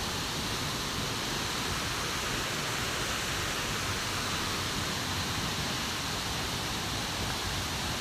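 Steady rush of water falling from a waterfall, an even, unchanging wash of noise.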